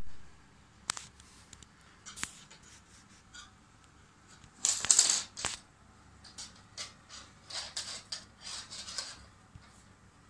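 A kitten playing with a cloth on a laminate floor: scattered light clicks, scratches and rustles of claws and fabric on the floor. A louder scrabbling flurry comes about halfway through.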